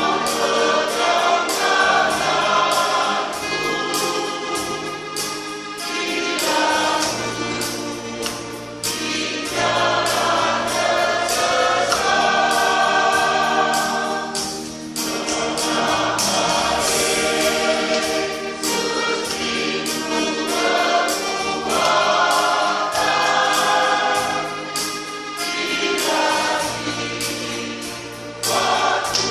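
Church choir singing a hymn in parts, with sustained, flowing phrases.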